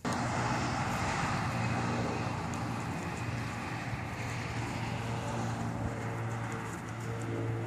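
Wind noise on the microphone, with a steady low hum underneath.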